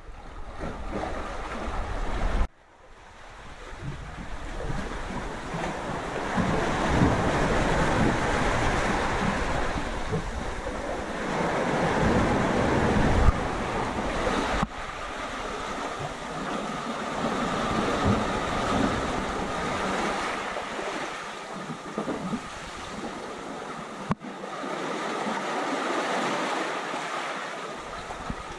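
Sea surf washing in over rocks and pebbles, swelling and easing, with wind buffeting the microphone; the sound changes abruptly a few times where the footage is cut.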